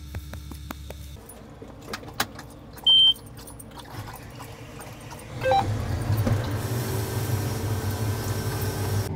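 Clicks and jangling like keys, then one short high beep about three seconds in. About five and a half seconds in, a louder, steady vehicle engine rumble begins and carries on.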